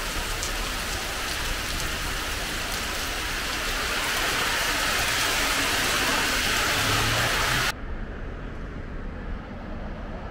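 Heavy tropical downpour hissing steadily on the pavement and road, growing louder over a few seconds. About three-quarters of the way through it cuts off suddenly to a much quieter street background.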